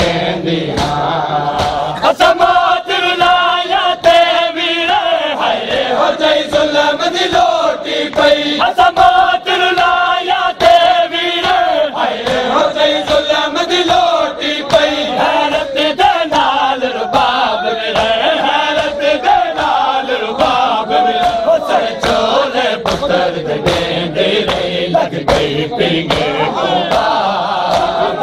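Men's voices chanting a noha, a Shia lament, together in a loud, sustained chant, with sharp, evenly repeated slaps of chest-beating (matam) keeping time.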